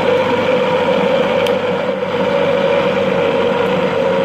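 Electric blender running steadily, its motor humming as it beats oil, ground sugar and egg into cake batter.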